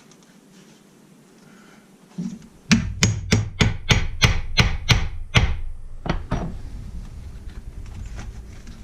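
Hammer blows driving a homemade slot punch through thick leather belt strap to cut the buckle slot: a quick run of about ten sharp strikes, around three a second, then two more after a short pause.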